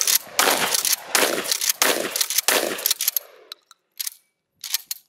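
Remington 870 Marine Magnum 12-gauge pump shotgun fired in a rapid string with bird shot, about one shot every 0.7 s, ending about three and a half seconds in, followed by a few light clicks.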